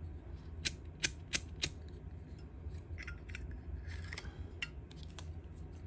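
Sharp metallic clicks from handling a Zippo lighter: four quick clicks in the first two seconds, then light scraping and a few softer clicks.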